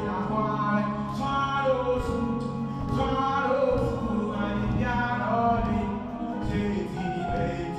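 Music: a male vocalist singing over a backing track.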